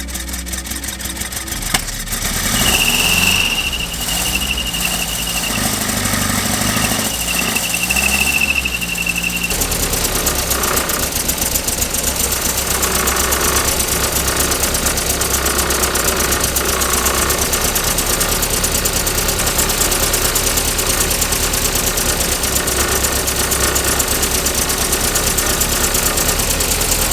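1964 Triumph TR4's four-cylinder engine running at idle on its dual Stromberg CD175 carburetors during carb tuning. For several seconds near the start a high, steady thin tone sits over the engine sound.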